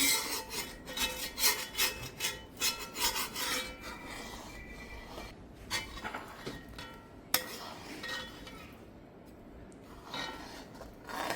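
A spoon scraping around a pot while thickening milk for pera is stirred, about three strokes a second at first, then fainter, with one sharp click about seven seconds in. The constant stirring keeps the milk from running over and from burning at the edges.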